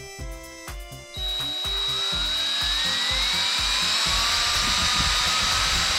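Background music with a beat, then about a second in a power drill starts and runs continuously, its whine rising for a couple of seconds and then holding steady.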